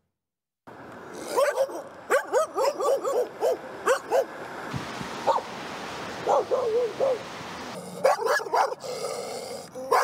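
Stray dogs barking in quick runs of short, sharp barks, over a steady background hiss.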